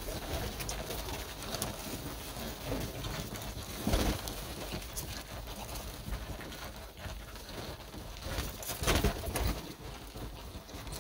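A flock of domestic pigeons crowding a feeder, cooing, with wings flapping as they jostle. There are two louder bursts, about four seconds in and again about nine seconds in.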